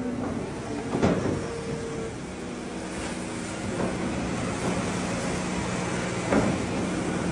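Water-well drilling rig's engine running steadily while its drilling bucket is emptied of wet spoil, with a sharp knock about a second in and another near the end.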